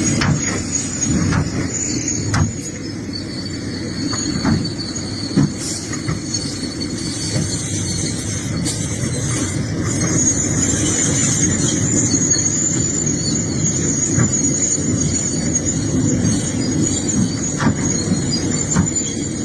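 Excavator at work: the engine runs steadily with a thin, high-pitched squeal over it and a few short knocks.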